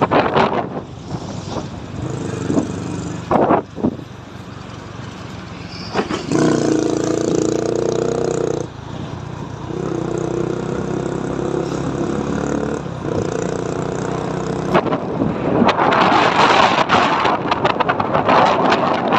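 Vehicle road noise from a moving car, with a pitched engine drone that swells in twice, each time for a few seconds, and a few sharp knocks. Near the end a loud rushing noise builds up.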